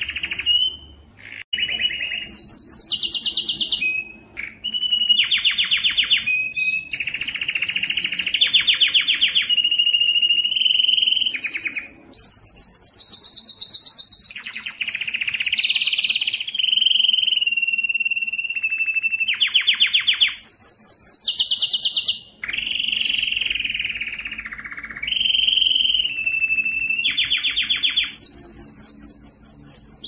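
Male canary singing a long, near-continuous song: fast trills of rapidly repeated notes alternating with steady whistled tones, the phrase changing every second or two, with only a few short breaks.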